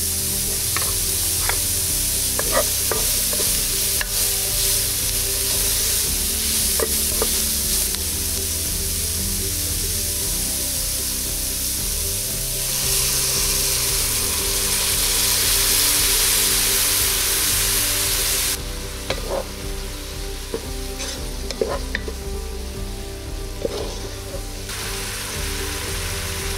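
Minced garlic, onion, celery and wood ear mushrooms sizzling in oil in a pot, with light clicks and scrapes from stirring. About halfway through, annatto water is poured in and the sizzle gets louder for several seconds, then drops to a softer sizzle as the stirring goes on.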